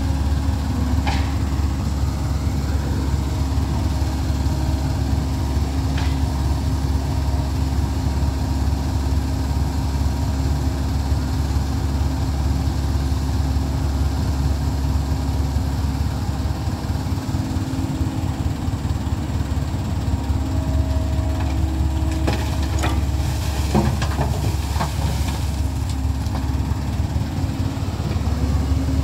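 Komatsu hydraulic excavator's diesel engine running steadily as it digs and swings, with a few sharp knocks and clatters of rock late on.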